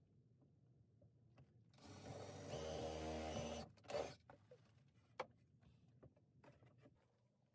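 Cordless drill driving a screw into a wooden bin: a whir of under two seconds that builds up and then runs steady, followed by a sharp knock and a lighter click.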